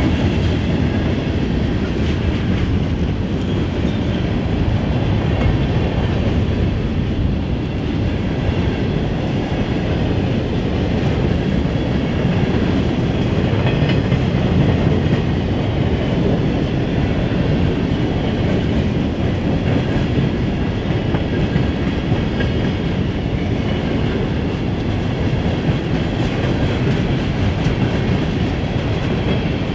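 A freight train's cars, mostly empty open-top stone hoppers, rolling steadily past: continuous rumble of steel wheels on the rails.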